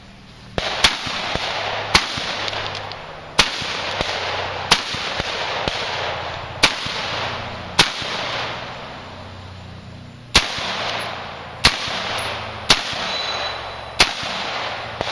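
Glock 17 9 mm pistol firing about a dozen single shots in a stage run, roughly one a second, with a longer pause about eight seconds in.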